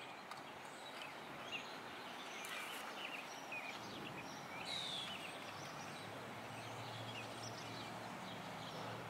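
Faint outdoor background: a steady hiss with scattered short bird chirps.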